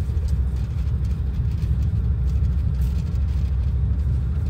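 Steady low rumble of a moving passenger train, heard from inside the sleeper carriage.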